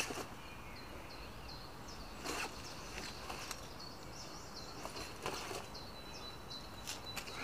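Small songbirds chirping in the trees, a steady string of short high notes, with a short held whistle near the end. A few brief swishes, about two seconds apart, come from a jacket rustling as the arms are swung.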